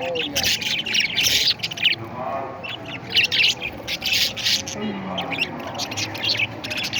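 Several parrots chattering with many rapid, short, high squawks and chirps overlapping one another.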